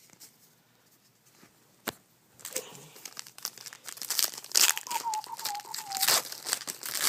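Trading card pack wrapper crinkling and being torn open, starting about two and a half seconds in after a single sharp click.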